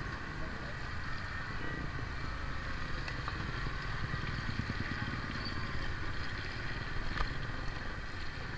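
Gas wok burner running under a carbon-steel wok, with fried rice sizzling in it and a steel ladle knocking against the pan a few times.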